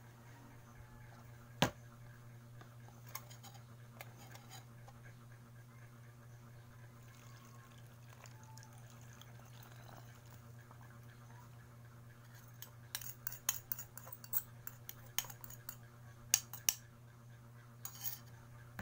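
A metal spoon clinking and scraping against a ceramic bowl and a plastic funnel as a liquid mixture is poured and scraped out into a plastic bottle. There is one sharp clink about a second and a half in, then a run of quick clinks and taps over the last several seconds, over a steady low hum.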